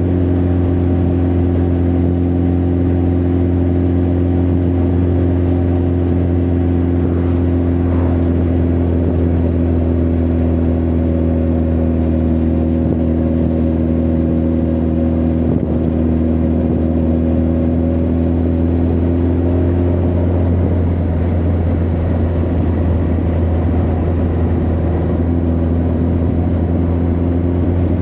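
Honda CB1300 Super Bol d'Or's inline-four engine and exhaust running steadily at a cruise, heard from the rider's seat. The engine note eases slightly about two-thirds through, then picks up again.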